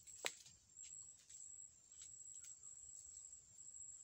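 Faint steady high-pitched insect trill, cricket-like, with one sharp click about a quarter second in and a few faint ticks.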